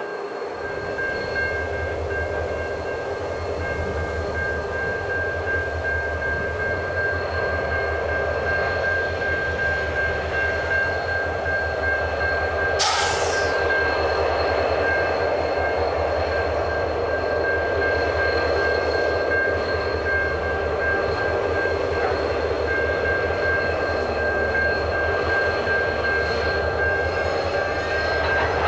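Twin GWA ALF-class diesel locomotives hauling a loaded ballast train out of a loop, their engines running with a steady low rumble under a constant high whine. A short hiss comes about 13 seconds in.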